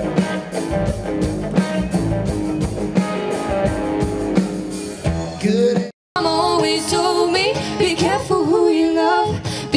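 Live band music with guitars and singing, then an abrupt cut about six seconds in to a woman singing over acoustic guitar.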